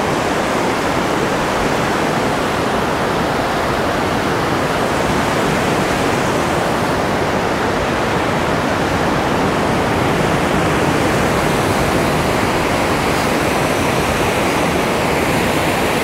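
River waterfall rushing steadily, a dense, even noise of falling water that stays at the same level throughout.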